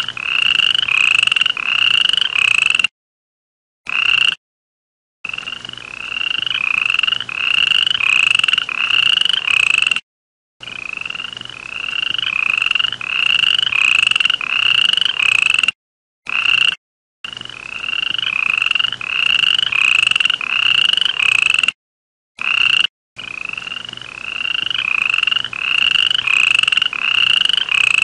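A frog calling: a fast series of short, high-pitched rising croaks, about two to three a second, each run building in loudness over a few seconds. The calling cuts off into sudden silence several times and then starts again.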